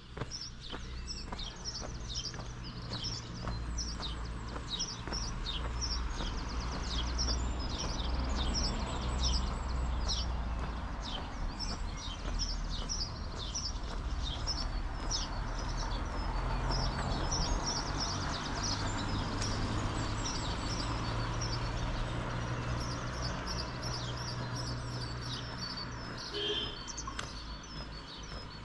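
Small songbirds chirping rapidly and repeatedly in short high notes, over a steady low rumble.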